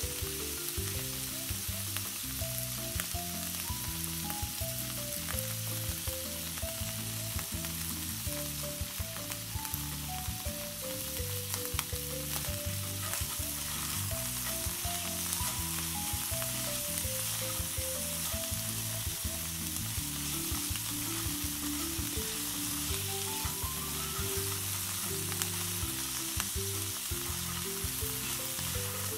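Crayfish sizzling in a hot cast-iron skillet as they are tossed with tongs, with light clicks of the tongs against the pan now and then. A tune plays underneath.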